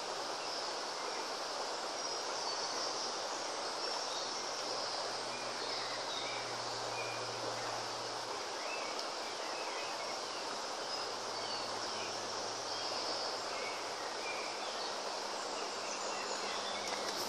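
Steady riverside ambience: the constant hiss of flowing river water, with short high bird chirps scattered throughout.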